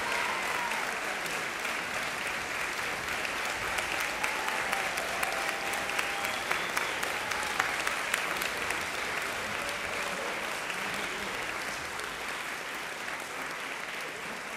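Concert audience applauding, a dense mass of hand clapping that gradually thins and fades toward the end.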